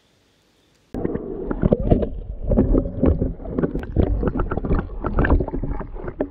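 Water sloshing and bubbling, picked up by an underwater camera's microphone, with many quick knocks and clicks over a heavy low rumble; it starts suddenly about a second in.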